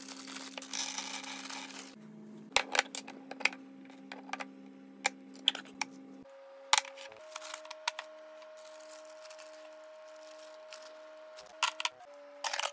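Rustling of a plastic bag and scattered sharp clicks and taps of food preparation at a tiled kitchen counter, over soft background music of sustained notes that shift every few seconds.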